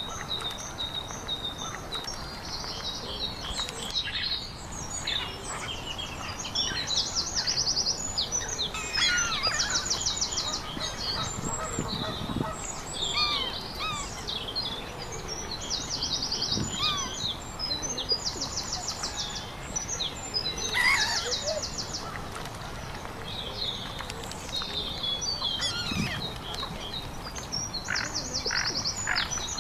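Several songbirds singing and calling at once: short, fast, high trills come every few seconds, mixed with chirps and swooping whistled notes.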